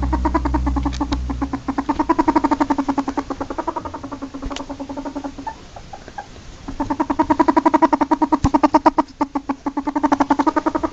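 Ferret dooking: a rapid, pitched chuckling of many quick clucks a second, in two long runs with a pause in the middle and a short break near the end. A low hum underneath stops about a second and a half in.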